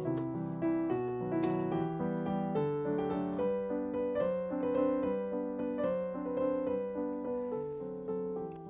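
Background piano music: a slow melody of held notes over sustained chords.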